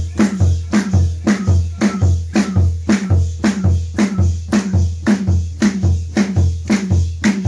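Loud, steady, fast rhythm of deep drum beats and hand claps, about three strokes a second, keeping time for hadra devotional dancing.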